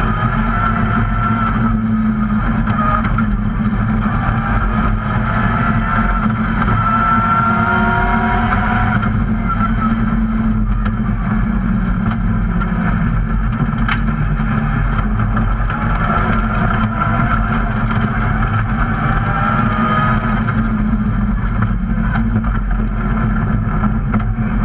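Rally car engine heard from inside the caged cockpit at speed: a loud, steady drone with the revs rising and falling over and over as the driver accelerates, lifts and changes gear.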